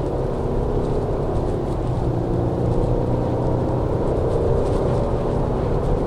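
Cabin noise of a 2020 Jeep Wrangler Rubicon's 3.6-litre V6 running steadily at about 90–100 km/h, near 3000 rpm, with tyre and road noise.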